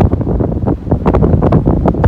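Strong storm wind buffeting the microphone in loud, gusty rumbles.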